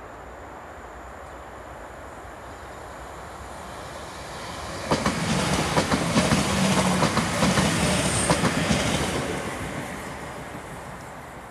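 London Midland electric multiple unit passing close by: a building rumble, then a rapid run of wheel clicks over the rail joints from about five seconds in, with a brief high squeal near the loudest point, fading away as the train recedes.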